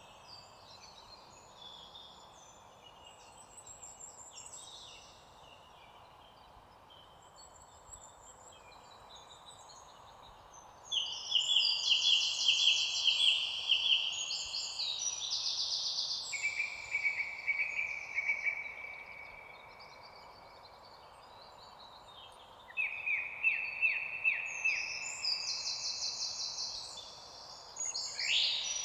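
Birds singing: many overlapping trilled phrases at several pitches over a faint background hiss. The song is soft at first, grows louder about a third of the way in, eases off, then rises again for the last few seconds.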